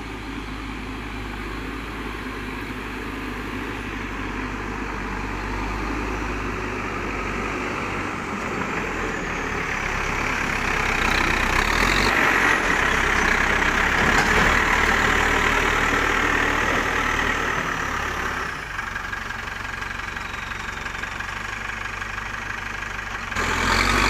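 Diesel engine of a Terex TLB 740S backhoe loader running steadily. It grows louder from about ten seconds in, drops back after several seconds, and rises again near the end.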